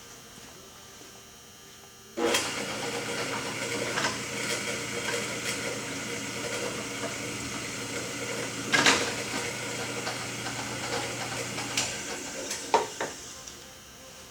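Drill press switched on about two seconds in and running steadily for about ten seconds, a 5/16 bit drilling out the worn rope bushing of a Stihl 026 chainsaw starter housing, with a few sharp clicks as it cuts; the motor then cuts off and winds down.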